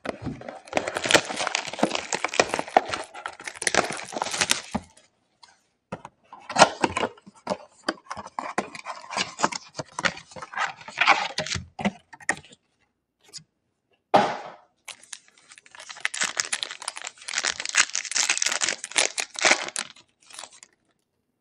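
Foil trading-card pack wrappers and their cardboard box being torn open and crinkled by hand. The crackling comes in three long stretches with short pauses between.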